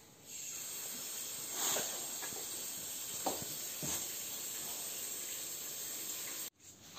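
Water running from a bathroom shower or tap: a steady hiss with a few faint knocks, stopping suddenly near the end.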